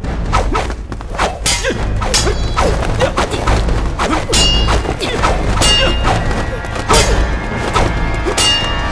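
Film sword-fight sound effects: a rapid run of thuds and whacks from blows, with three ringing metal clangs of sword blades striking. A low, driving music score plays underneath.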